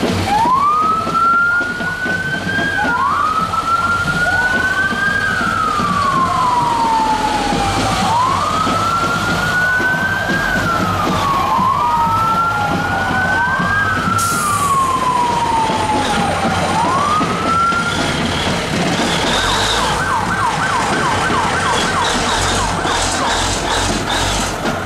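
Emergency vehicle siren in a slow wail, rising quickly and falling away over about two to three seconds each cycle, with a second wail overlapping at times. About three quarters of the way through it switches to a fast yelp. A brief hiss cuts in about halfway, over steady engine and street noise.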